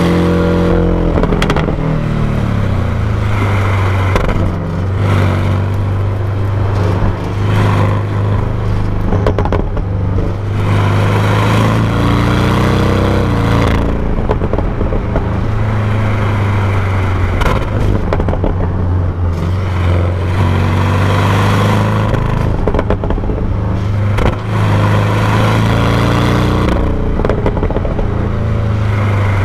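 Porsche 718 Cayman GTS's turbocharged 2.5-litre flat-four running through its stock exhaust while the car is driven. The engine note falls in pitch at the start, then holds fairly steady revs with a few gentle rises and dips. Rough, crackly rustling noise runs over it.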